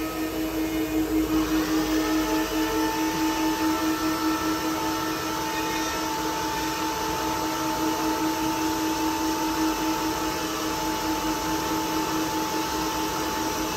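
4-axis CNC wood router spindles running with a steady high whine while cutting blocks of wood. About a second in, a second, higher tone and a rush of cutting noise come in and then hold steady.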